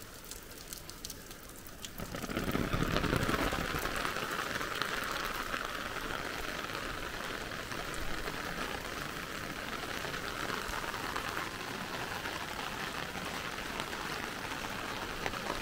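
Heavy rain pattering on an umbrella held overhead, a steady dense hiss that grows suddenly louder about two seconds in.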